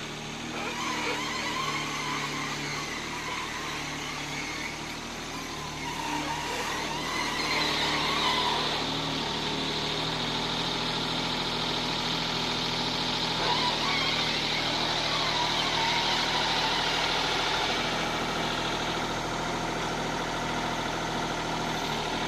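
Diesel engine of a Toro Dingo TX 525 compact tracked utility loader running steadily as it lifts a load with its arms. About eight seconds in it grows louder, with a high hiss added for roughly ten seconds.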